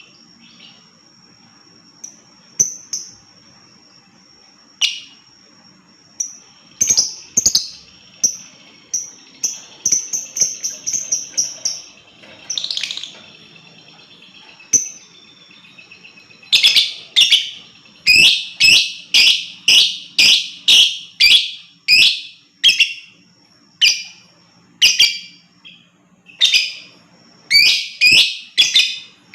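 Lovebird calling with shrill, sharp chirps. They are scattered at first, then become a fast, steady series of about two a second from about halfway through.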